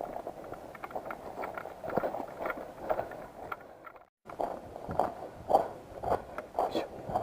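Footsteps with rustling: an uneven run of soft knocks. The sound cuts out completely for a moment about four seconds in.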